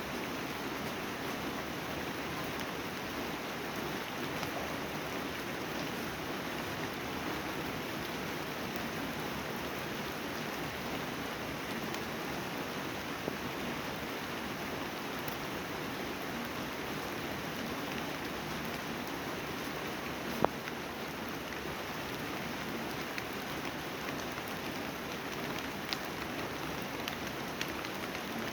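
Steady rain falling, with scattered louder drop hits and one sharp tap about two-thirds of the way through.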